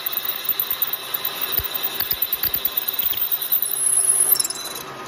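Milling machine spindle driving a long tapping drill down a head-stud hole in a Cosworth YB 200 cast-iron block: the drill cutting with a steady high tone and fast rattling chatter, which stops about four and a half seconds in.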